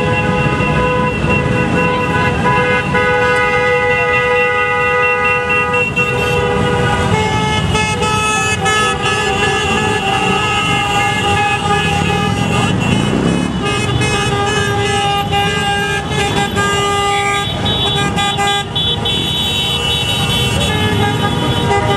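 A procession of motorcycles riding slowly past with engines running, while several horns sound at once, held and steady, changing pitch partway through. About halfway through one engine revs up.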